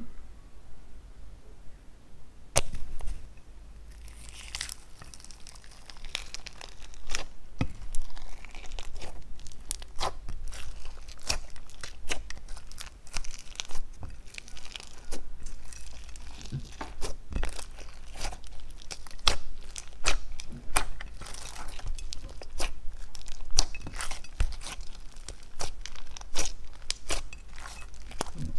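Slime being mixed and kneaded by hand with clay, sprinkles and beads worked in: an irregular run of sticky crackling and crunching with many quick sharp clicks.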